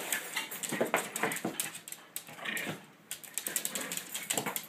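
A small dog nosing and pushing a cardboard soda box across a wooden floor: irregular scraping and knocking of the cardboard, quieter for a moment around the middle.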